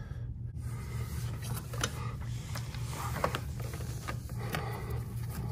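Plastic water hose being handled and pulled through a refrigerator's base, giving faint scattered rubbing and clicking sounds over a steady low hum.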